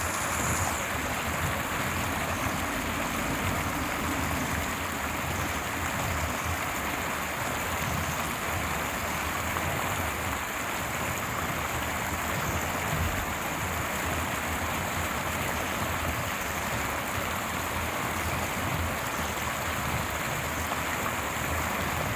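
Stream water running over rocks, a steady unbroken rush.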